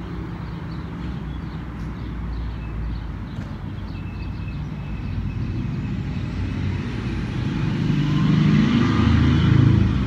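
A car engine running close by, its low hum growing louder over the last few seconds.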